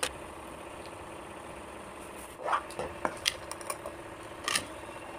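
Short handling clicks and scrapes over a faint steady hum: one sharp click at the start, then a cluster of small clicks and scrapes in the second half.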